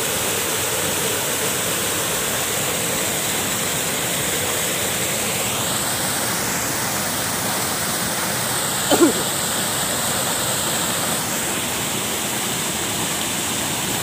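Small waterfall pouring over a rock ledge into a river pool: a steady, even rush of falling and churning water. A brief sharp sound breaks in about nine seconds in.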